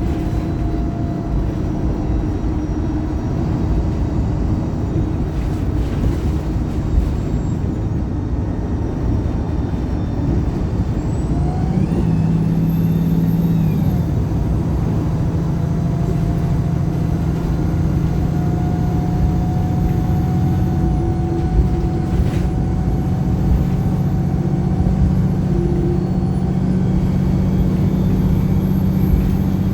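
Wright Pulsar single-deck diesel bus under way, heard from inside: the engine drones steadily over road noise. Near the middle the engine note shifts briefly, then holds steady and a little louder.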